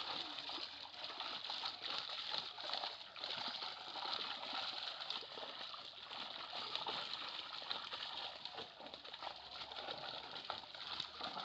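Water splashing and sloshing continuously, a busy irregular patter with no pauses.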